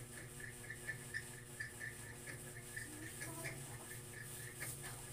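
Quiet room tone: a steady low electrical hum with a faint, regular high-pitched tick or chirp repeating about four times a second.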